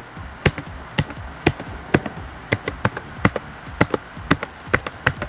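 Keys being pressed one at a time on a RAKK Pirah Plus mechanical keyboard with Outemu switches: sharp, separate clacks, about two or three a second, unevenly spaced.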